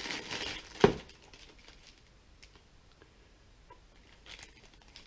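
Clear plastic wrapping crinkling as a laptop power adapter is handled and unwrapped, with one sharp knock a little under a second in. After that only faint ticks and a brief rustle near the end.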